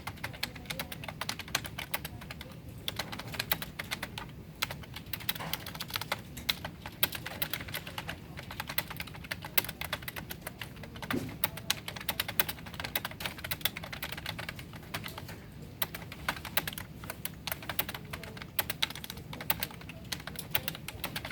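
Fast touch-typing on a computer keyboard at about 59 words per minute: a dense, uneven stream of key clicks with brief pauses.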